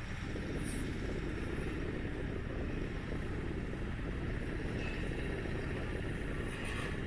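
Steady low rushing noise, typical of wind buffeting the microphone during a ski run.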